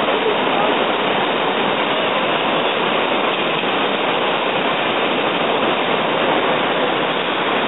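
River water rushing steadily over rocks through shallow rapids.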